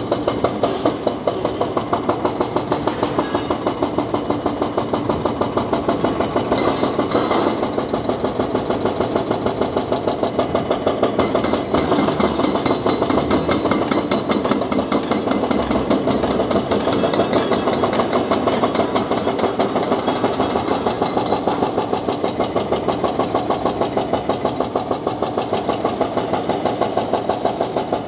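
Hydraulic breaker hammer on a large tracked excavator chiselling concrete: rapid, even hammering blows that keep going without a pause.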